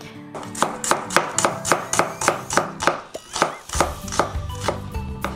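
Chef's knife slicing a red onion on a wooden cutting board: a quick, even run of cuts, about four a second, each stroke knocking on the board.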